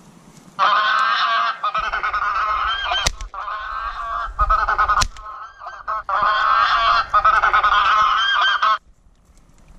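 Goose honking played through an electronic game caller: a dense chatter of honks that switches on abruptly about half a second in and cuts off just as suddenly near the end, with a short gap in the middle. Two short, sharp cracks about two seconds apart cut through the honking.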